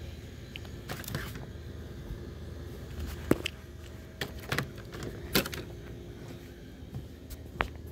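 Hands handling packaged candy and cardboard display boxes on a shelf: scattered clicks and knocks, the sharpest about three and five seconds in, over a steady low hum.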